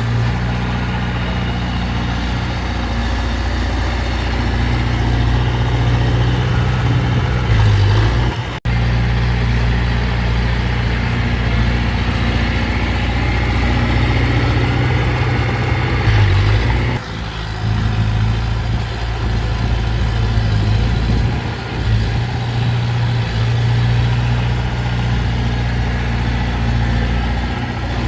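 Heavy earthmoving machine's diesel engine running steadily with a deep low hum. The sound breaks off briefly twice.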